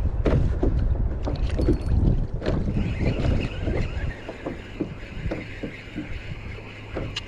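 Spinning reel being cranked against a hard-pulling fish, with short clicks from the reel and hands. Wind buffets the microphone in the first half, and a steady high whir runs from about three seconds in until it cuts off just before the end.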